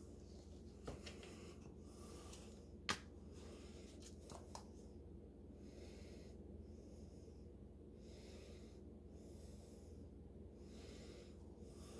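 Near silence: faint low room hum, broken by one sharp click about three seconds in and a few fainter ticks as a plastic mixing cup and a squeeze bottle of acrylic paint are handled.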